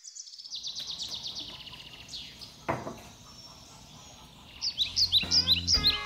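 Birds chirping in rapid series of short high chirps, with one sharp falling call partway through. About five seconds in, music with plucked-string notes and a steady bass comes in.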